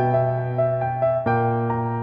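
Background piano music: a melody of struck notes over held chords, with the chord changing a little past halfway.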